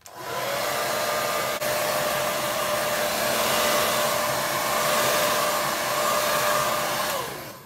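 Hand-held electric dryer blowing air over a wet watercolour wash to dry it. It starts up with a short rising whine, runs as a steady whine over a rush of air, then winds down with a falling whine near the end as it is switched off.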